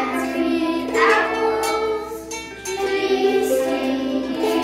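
A group of children strumming ukuleles together and singing along, the notes changing about once a second. The song walks through the names of the four open strings in standard G-C-E-A tuning.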